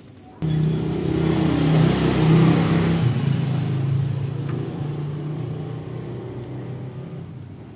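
A motor vehicle engine running: it comes in suddenly about half a second in, is loudest a couple of seconds later, then slowly fades.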